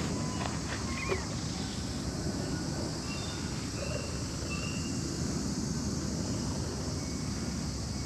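Outdoor ambience: a steady high insect chorus over a low rumble, with a few faint short chirps about three to four seconds in.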